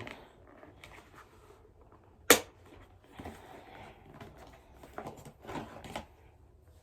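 A welding helmet being handled: one sharp click about two seconds in, then a few soft knocks and rustles.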